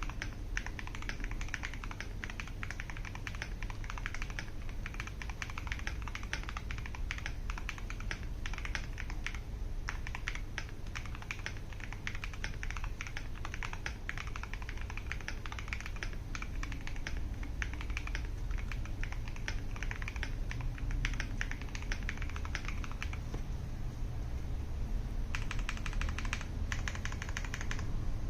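Typing on a KBD67 Lite R3 mechanical keyboard with lubed Tecsee Ice Candy linear switches, a polycarbonate plate and Cherry-profile keycaps: a steady stream of quick keystrokes that thins out briefly about 23 seconds in, then a fast, even run of presses near the end.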